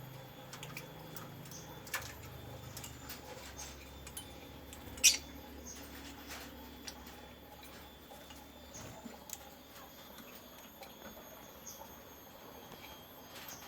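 Small parrots (a sun conure and lovebirds) feeding: scattered light clicks and taps of beaks on seed and food, with one sharp, loud short sound about five seconds in.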